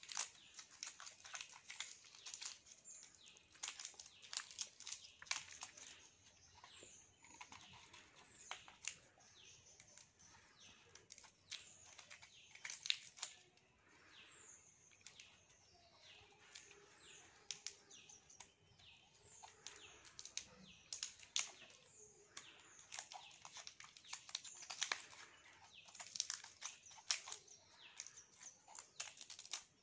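Faint small clicks and scratches of hands twisting bare copper wire ends together, with birds chirping in the background.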